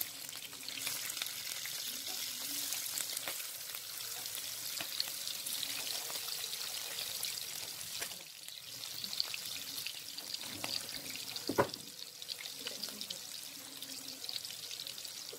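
Slices of boiled, pounded beef sizzling and crackling in shallow oil in a frying pan, a steady hiss given a quick fry rather than fried crisp. A single sharp knock about two-thirds of the way through.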